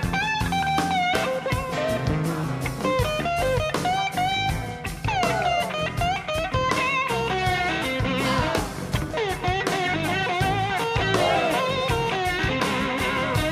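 Live rock-blues band music led by an electric guitar solo on a red SG-style guitar, the lead line sliding and bending between notes over the band's drums and bass.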